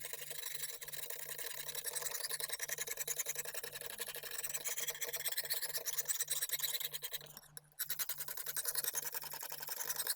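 Lansky extra coarse 70-grit sharpening stone rasped quickly back and forth along a steel kitchen knife edge, about four to five strokes a second, with a brief pause about three quarters of the way through.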